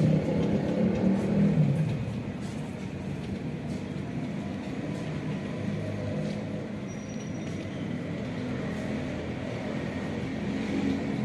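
Road traffic: a vehicle engine hums loudest in the first two seconds and fades, leaving a steady low traffic rumble.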